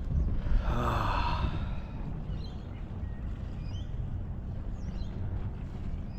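A person's long sigh, about a second in, over a steady low rumble.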